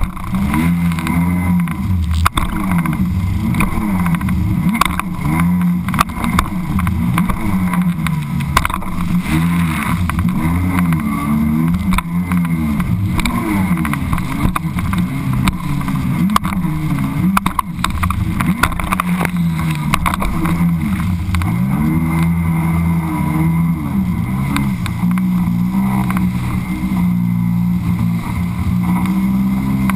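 Sea-Doo personal watercraft running at speed over chop, the engine's pitch rising and falling about once a second as the revs swing, with frequent sharp slaps and splashes of water against the hull.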